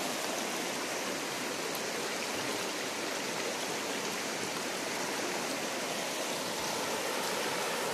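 Shallow river water rushing steadily over a stony bed.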